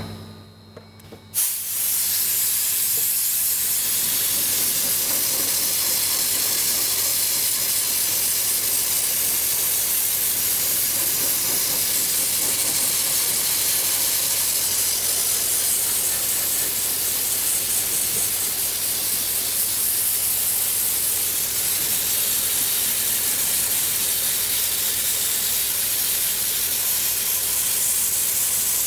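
Dry ice blasting gun spraying against a car's underbody: a steady, loud hiss of the compressed-air and dry ice blast that starts suddenly about a second and a half in.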